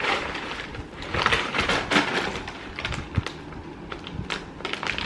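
Irregular crackling and clicking of a plastic snack package being handled.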